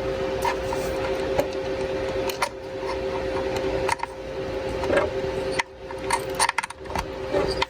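Scattered small clicks and rubbing as a retaining clip is worked into the Traxxas battery hold-down's post by hand, with a steady two-tone hum underneath.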